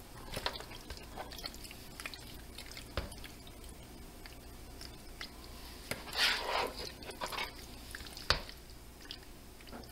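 A serving spoon scooping sauce-coated pasta from a plastic bowl into a glass baking dish: scattered clicks and knocks of the spoon, the loudest near the end, and a soft wet squish of the saucy pasta about six seconds in.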